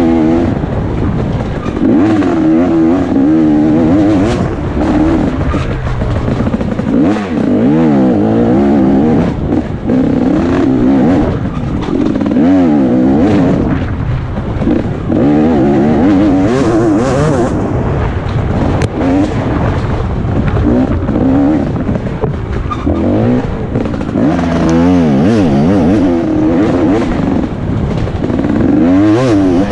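2017 KTM 250 XC-W two-stroke dirt bike engine revving up and down again and again as it is ridden hard over rough trail, with scattered knocks from the bike.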